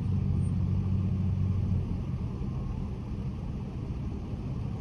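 Car engine idling: a steady low hum that drops in level about two seconds in.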